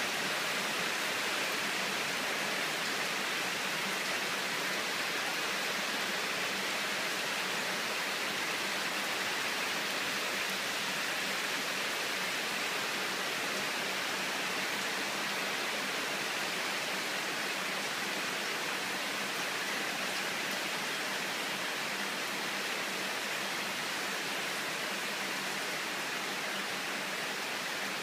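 Heavy rain pouring steadily in a sudden summer cloudburst (a "guerrilla" downpour), a dense, even hiss.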